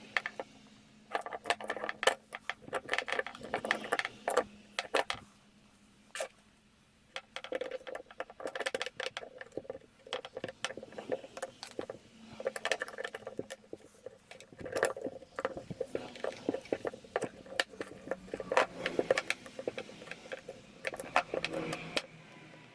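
Irregular clicks, clinks and scrapes of small metal and plastic parts being handled and fitted during hand work on an electric drill.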